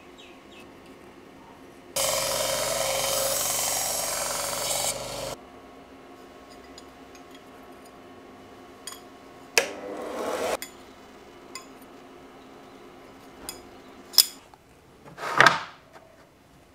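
A small bench grinder runs for about three seconds, grinding steel, and starts and stops abruptly. Later come scattered clicks and knocks of flat steel straps being handled, with one louder clatter near the end.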